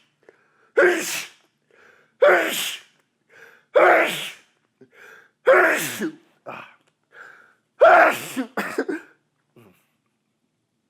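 A fit of about six wet sneezes brought on by chhinkni sneezing powder, roughly one every one and a half seconds, with short breaths drawn in between. The last two come close together.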